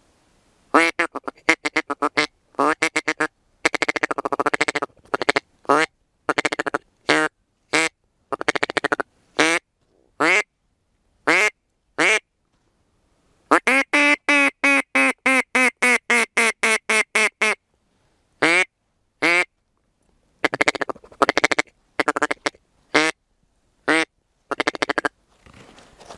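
A hand-blown duck call sounding a hen mallard's quacks, loud and close, to call a flock of wild ducks: short rapid runs of quacks and, in the middle, one long run of evenly spaced quacks.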